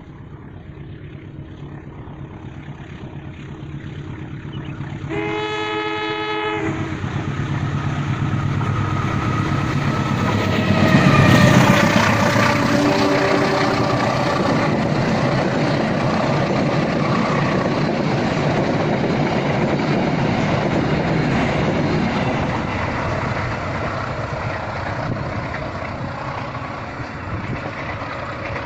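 Passenger train approaching and passing: the locomotive's horn sounds once for about a second and a half, then the train grows louder, peaking about eleven seconds in. A long steady rumble and clatter of the carriages going by follows.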